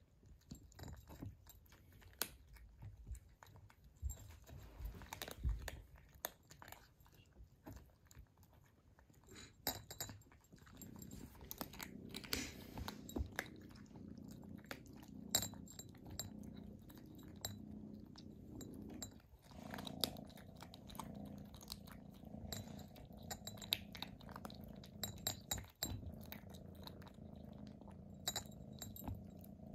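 Kittens eating from bowls: a run of quick, irregular wet chewing and smacking clicks. A low steady hum comes in about a third of the way through and stays underneath.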